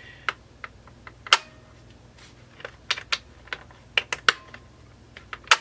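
Irregular sharp clicks and light knocks of small chainsaw parts being handled and worked during assembly, about a dozen, a few with a short metallic ring; the loudest comes about a second in and another just before the end.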